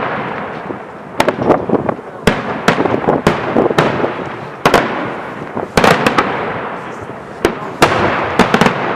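Daytime aerial fireworks shells bursting overhead: a rapid, irregular series of loud bangs, some in quick clusters, each trailing off in a rolling echo.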